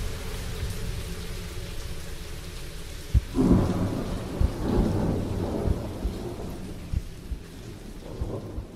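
Thunderstorm sound effect: steady rain, with a roll of thunder that breaks about three seconds in and rumbles away over the next few seconds, among scattered low thumps.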